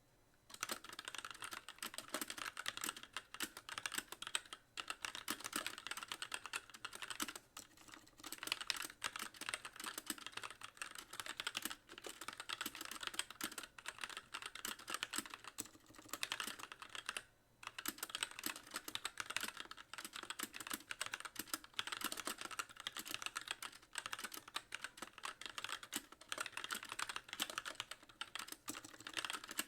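Steady, fast typing on a Magicforce mechanical keyboard with light linear Gateron Clear switches and stock keycaps, each keystroke bottoming out with a clack. It starts about half a second in and runs in long bursts, with a few brief pauses, the longest about 17 seconds in.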